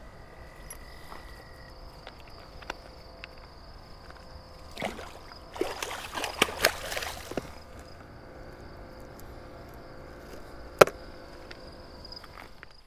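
Steady high insect chirring from crickets, with scattered small clicks, a few seconds of crackling and rustling about midway, and one sharp snap near the end.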